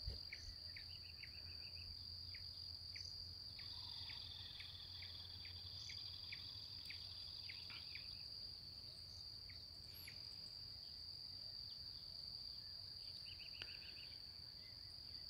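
Faint, steady, high-pitched insect trill that never breaks, with short, scattered high chirps over it.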